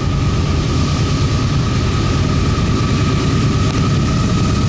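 Diesel freight locomotives approaching: a steady low rumble with a thin steady whine above it.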